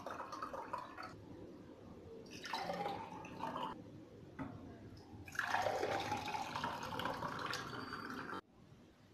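Falsa juice being poured from a jug into a glass pitcher and drinking glasses, in three pours with the last the longest, stopping suddenly near the end.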